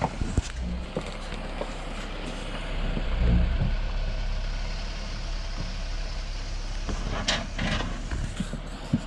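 Off-road Jeep crawling slowly down a rocky trail: the engine runs low and steady under tyre noise, with scattered knocks of tyres on rock and a heavier low thump about three seconds in.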